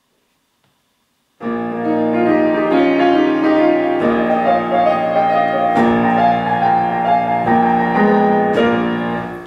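Grand piano playing a song's introduction: chords and melody start abruptly about a second and a half in, after silence, and die away near the end.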